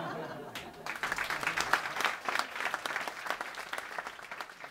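A theatre audience applauding: many hands clapping. The clapping builds up about a second in and thins out near the end.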